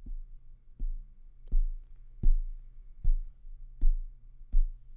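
Fingers tapping the metal body of a Neumann TLM49 condenser microphone, picked up by the microphone itself: six short, dull thuds evenly spaced about three-quarters of a second apart. A tap test listening for any resonance in the mic body.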